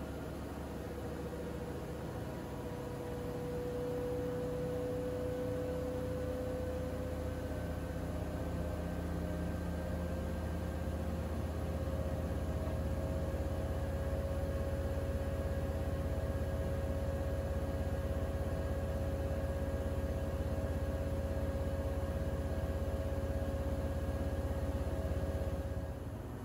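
Siemens iQ700 WG56B2090 front-loading washing machine running its drum motor in one long, steady run. The whine rises slowly in pitch, and the motor cuts off just before the end.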